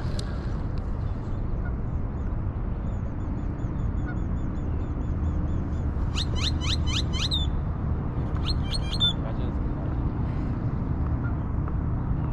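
Birds calling: a run of quick, high chirps at about four a second, then two clusters of sharp, downward-sweeping calls about six and nine seconds in, over a steady low rumble.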